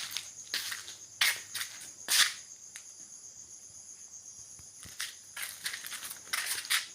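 Irregular rustling, crunching noises, bunched at the start and the end with a quieter stretch in the middle, over a steady high-pitched hiss.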